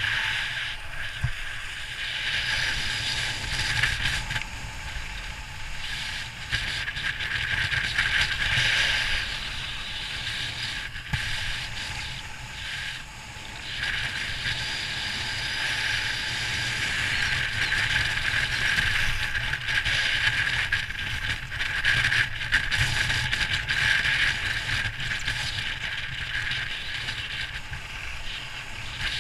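Wind rushing over the camera microphone, mixed with the steady hiss and scrape of edges sliding over packed snow on a ski run. It swells and fades as the rider speeds up and carves.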